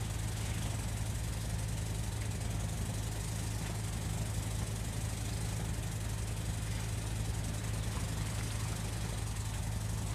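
An engine idling steadily, a low even drone that does not change.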